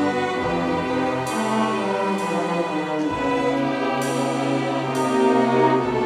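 School string orchestra playing: violins, violas, cellos and double bass bowing sustained chords that change every second or so.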